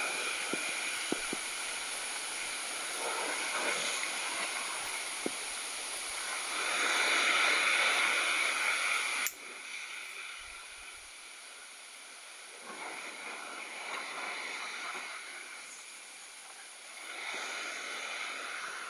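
Sea surf washing against rocks, swelling and falling in waves; it is loudest about seven to nine seconds in, then drops off suddenly.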